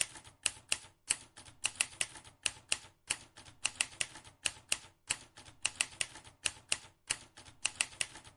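Typewriter keys clacking: sharp clicks in irregular quick runs of two or three, several a second.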